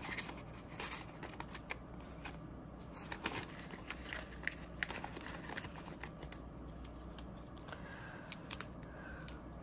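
Paper banknotes rustling and crinkling as they are handled and slid into a clear vinyl cash envelope: a faint string of irregular soft rustles and clicks.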